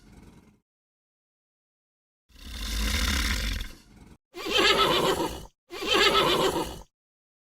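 An animal calling three times after a short pause: a breathy call with a deep low end, then two louder, pitched calls in quick succession.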